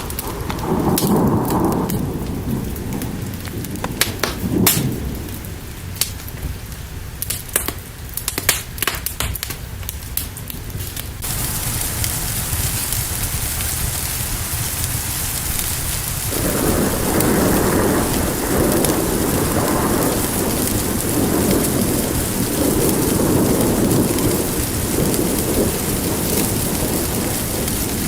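Fire crackling in sharp pops over a low rumble. About eleven seconds in, a steady hiss of heavy rain cuts in suddenly, and from about sixteen seconds thunder rolls on and off under the rain.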